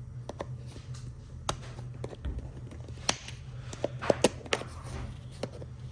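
Hands opening packaging and handling small fidget toys: scattered sharp clicks and taps with a few short rustles, over a steady low hum.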